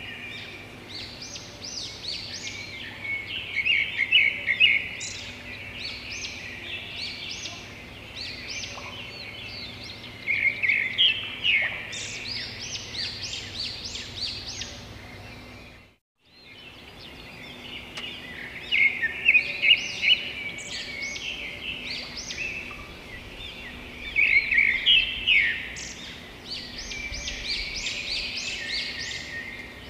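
Songbirds chirping and twittering in a busy chorus of quick, high calls. It cuts out abruptly just past the middle and then resumes.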